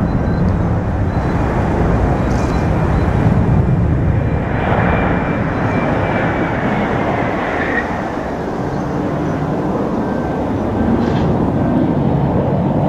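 Airbus A320-211's CFM56 jet engines running loud during the landing rollout: a steady low rumble with a faint high whine that slowly falls in pitch over the first several seconds as the engines spool down.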